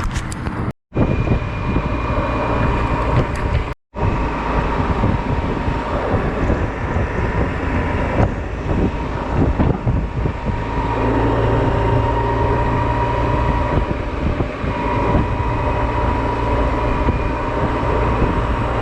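Honda Silver Wing maxi-scooter running on the road, with steady engine and road noise and wind over the microphone. The sound cuts out completely twice for a moment near the start, a dropout in the camera's recording.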